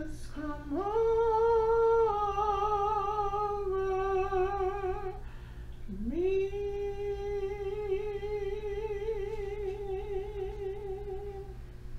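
A woman's voice holding two long notes with a wavering vibrato, each sliding up into its pitch; the first lasts about four seconds, and the second, a little lower, about five and a half. A steady low hum runs underneath.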